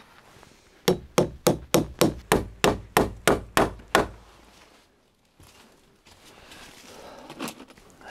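Hammer driving nails into a wooden building frame: about a dozen quick, even blows, three or four a second, that stop about four seconds in, leaving only faint background.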